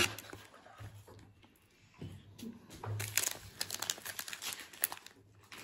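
Foil-wrapped trading-card packs crinkling and rustling in the hands as they are slid out of an opened cardboard blaster box. It is faint at first, with light crinkles, clicks and soft handling knocks from about two seconds in.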